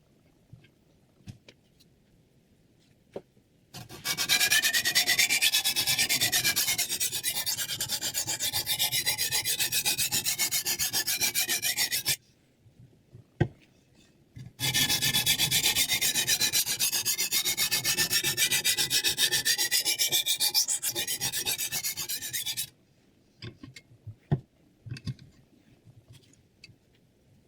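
Steel knife blade rubbing over a sharpening stone in rapid back-and-forth strokes, in two long runs of about eight seconds each with a short pause between them. A sharp click sits in the pause, and small clicks and taps come before and after.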